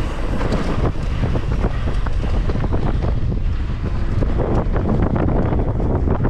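Wind buffeting the microphone over the constant rattle and clatter of a mountain bike riding fast down a rough trail, with many short knocks as the tyres hit rocks and roots.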